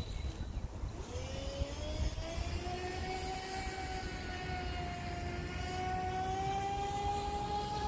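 Radio-controlled speed boat's motor whining as the boat runs across the water. The pitch rises about a second in and then holds nearly steady, over a low rumble.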